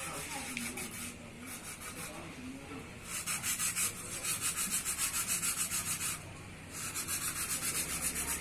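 Rapid back-and-forth rubbing strokes, about four a second, starting about three seconds in, with a short break near the end before they carry on.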